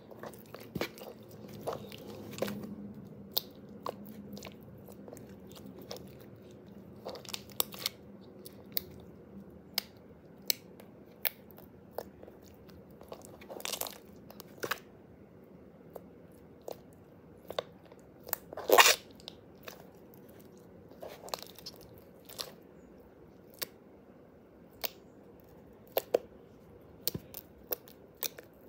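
Blue jiggly slime being pressed, poked and squeezed by hand, giving irregular sticky clicks and pops, with one louder, longer pop about two-thirds of the way through.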